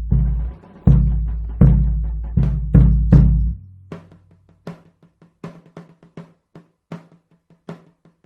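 Percussion ensemble playing drums: heavy, deep strokes that ring on, about one or two a second, then about three and a half seconds in lighter, quicker strokes in a steady rhythm.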